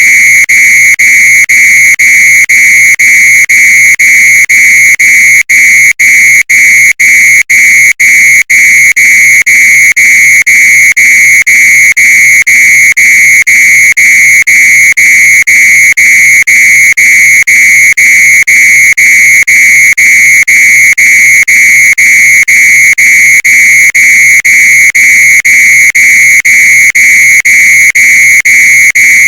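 Fire alarm sounding, a loud high-pitched electronic beep repeating about twice a second with only short breaks between beeps.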